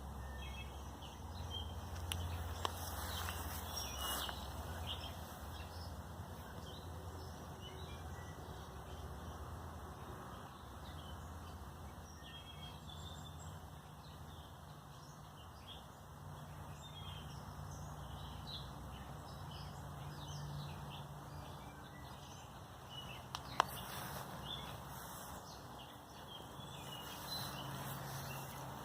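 Outdoor garden ambience: small birds chirping on and off over a low steady rumble, with one sharp click about two-thirds of the way through.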